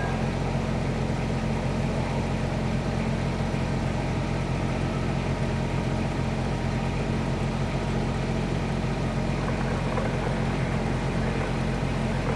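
Diesel freight locomotive's engine running with a steady low drone.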